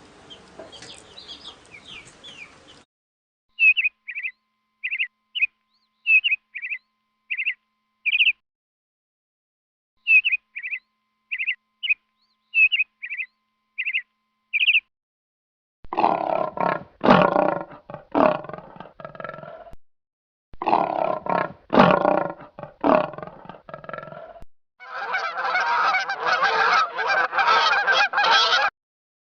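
Recorded animal calls played one after another. First, two runs of a bird's short, high chirps, each about five seconds long with a gap between them. Then loud, harsh calls in bouts, and a dense, continuous calling near the end.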